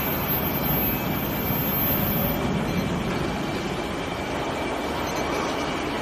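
Steady rumbling machine noise with a faint high steady tone, from induction weld preheat equipment running while it heats a pipe through flexible induction coils.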